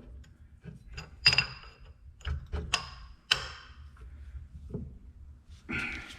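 Metal clinks and taps from drill bits and small tools being handled at a drill press: a string of separate light clicks, several with a brief metallic ring, and a short scraping sound near the end.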